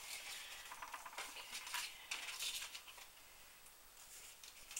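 Sheets of die-cut cardstock being handled and slid across a craft mat: faint, irregular papery rustling and scraping, with a small click near the end.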